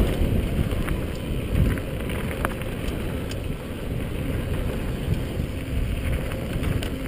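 Wind buffeting a helmet-mounted camera's microphone, over the rumble of a mountain bike's tyres rolling fast on a dirt trail, with scattered light clicks and rattles from the bike. It gets a little quieter after the first few seconds.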